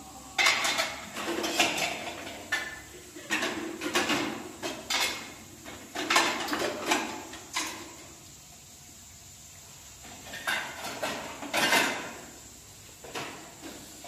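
Pots and dishes clattering and knocking as they are handled, in irregular strokes, with a pause of about two seconds partway through.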